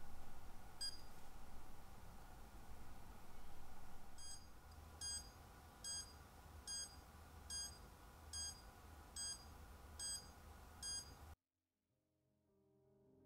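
SOEKS 112 radiation dosimeter beeping: one short high beep about a second in, then a regular beep a little faster than once a second, about nine in all, cutting off suddenly near the end. It is sounding its alarm at a reading of about 1.2 µSv/h over the watch's radium-painted dial.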